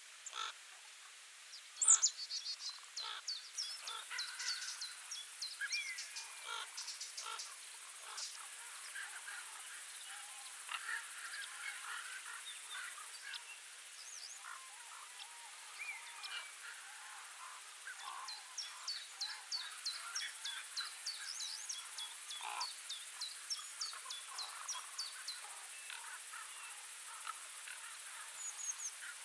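Small birds chirping in many quick, high-pitched runs over a faint steady hiss, with occasional lower calls among them and a sharp click about two seconds in.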